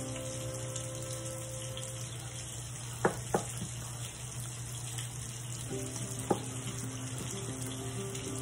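Whisk beating runny pancake batter in a glass bowl: a steady wet swishing, with sharp clicks of the whisk striking the glass, twice about three seconds in and once a little after six seconds.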